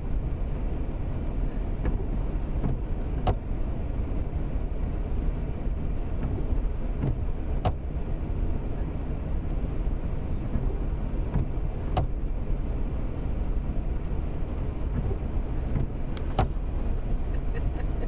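Steady low rumble of a car idling, heard from inside the cabin, with a sharp tick roughly every four seconds as the windshield wiper sweeps on its intermittent setting in the rain.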